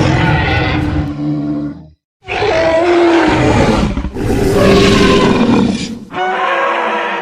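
Dubbed-in dinosaur roar sound effects: four long, pitched roars in a row, each lasting about two seconds, with short breaks between them.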